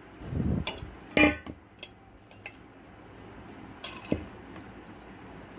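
Dough being kneaded by hand in a stainless-steel bowl: a dull thump as the dough is pressed against the bowl, a ringing clink of the steel bowl just over a second in, and a couple of light knocks about four seconds in.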